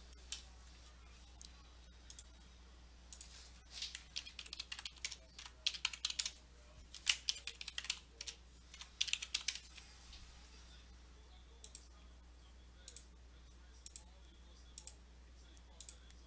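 Computer keyboard typing in quick bursts of keystrokes. Toward the end come single mouse clicks about once a second.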